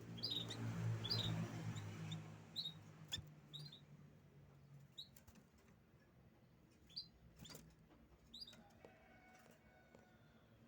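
Domestic canary giving short, high chirps, one every second or so, with a few sharp clicks among them. A low hum underneath fades away over the first few seconds.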